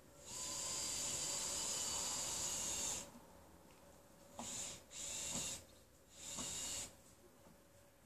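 Hissing in four bursts: one lasting nearly three seconds, then three short ones of about half a second each.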